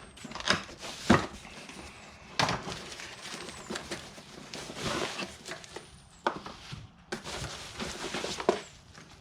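Cardboard parts box being opened and handled: irregular scrapes and rustles with a few sharp knocks, the sharpest about a second in.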